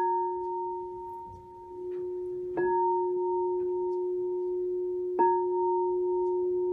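Singing bowl struck twice, about two and a half seconds apart, over the ringing of an earlier strike. Each strike rings on as a steady low tone with a clear higher tone above it, and a bright overtone on top fades within a second.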